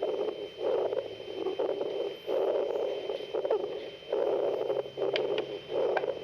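Recorded auscultation sample of lung crackles, a discontinuous abnormal lung sound: repeated swells of breath noise with brief sharp crackling pops in them, over a faint steady high tone.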